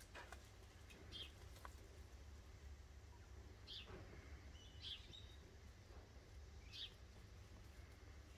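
Quiet scene with a few short, faint bird chirps spread several seconds apart, over a low steady hum.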